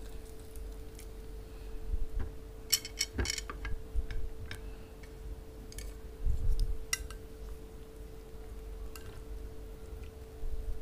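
Scattered light clicks and clinks of a metal spoon against ceramic dishes, with a quick cluster of clicks about three seconds in and a soft thud past the middle. A steady low hum runs underneath.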